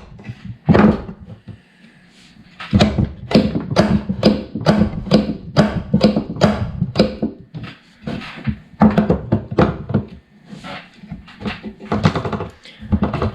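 1G DSM 90 shifter assembly being thrown back and forth through the gates, with a quick run of solid clunks as it hits its solid shift stopper. The firm knocks show the rebuilt bushings and stopper leave no play.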